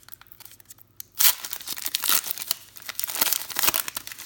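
A trading card pack's wrapper torn open and crinkled by hand, starting with a sharp rip about a second in and going on as a loud crackling rustle.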